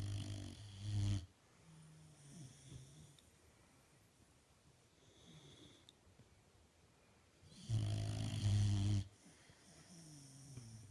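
Boxer dog snoring in its sleep: a loud snore at the start and another about eight seconds in, with softer breaths between.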